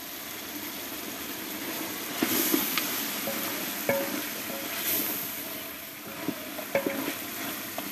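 Tomatoes and beef sizzling in a stew pot while being stirred, with a steady hiss. A spoon knocks and clinks against the pot about seven times.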